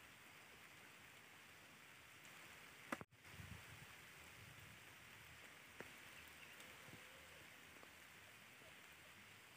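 Near silence: a faint steady hiss, broken by a short click about three seconds in and a smaller one near six seconds.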